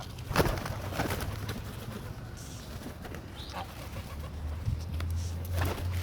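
Birds calling at a feeding spot, with pigeon-like cooing and a few sharp louder calls or knocks near the start and near the end.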